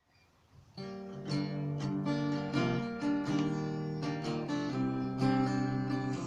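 Acoustic guitar strumming chords, starting about a second in.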